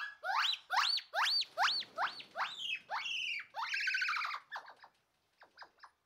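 An animal giving a rapid series of high squealing calls, each rising then falling in pitch, about two or three a second, then a harsher, buzzier call a little after three and a half seconds, trailing off into faint short squeaks.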